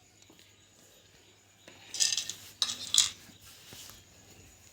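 Two brief bursts of clattering and rattling from small hard parts and tools being handled, about a second apart, with a few light clicks after.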